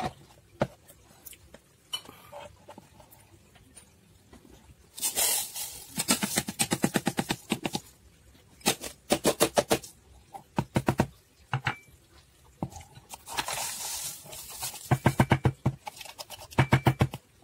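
Rapid bursts of light plastic tapping and rattling as a plastic funnel in a plastic bottle's neck is jiggled and a bamboo skewer pokes powdered citric acid and baking soda through the funnel's spout. Several runs of quick taps, with a soft hiss of pouring powder between them.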